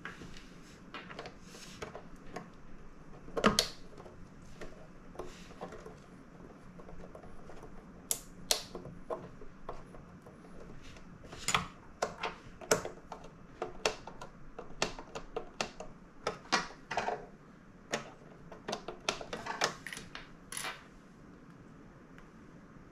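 Plastic parts of a Teenage Engineering PO-80 Record Factory kit being handled and fitted together: irregular light clicks and taps, the loudest about three and a half seconds in, with a busy run of them in the second half.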